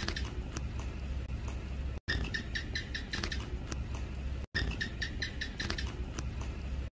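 House gecko calling: quick runs of sharp clicky chirps, about five a second, in three bouts.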